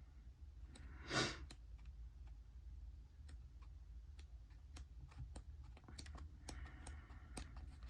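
Faint, scattered small clicks and taps from handling paper planner sticker sheets, with a soft breathy swish about a second in, over a low steady hum.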